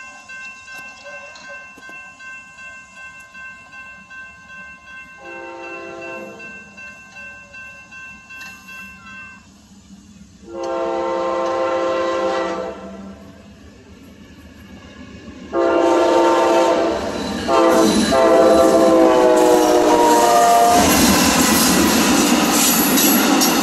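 Railroad grade-crossing bell ringing in a steady pulse while an approaching Amtrak diesel locomotive sounds its air horn for the crossing: four blasts, the last held longest, about three seconds. Near the end the train passes close by, its wheels and cars rushing loudly over the bell.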